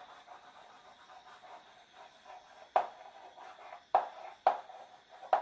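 Chalk writing on a blackboard: faint scratching with four sharp taps of the chalk against the board in the second half.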